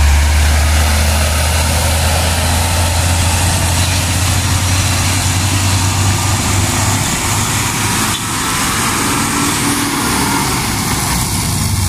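Hino 500 dump trucks' diesel engines running under load on a climb, a steady deep drone that comes close as a truck passes right by near the end.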